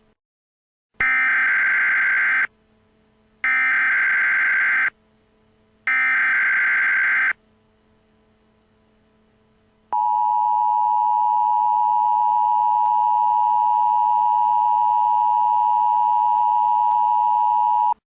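Emergency Alert System tones. First come three short bursts of the screeching digital SAME header, each about a second and a half long. Then, about ten seconds in, the steady two-tone attention signal starts, two close pitches sounding together for about eight seconds before it cuts off. The sequence marks the start of a new emergency alert message.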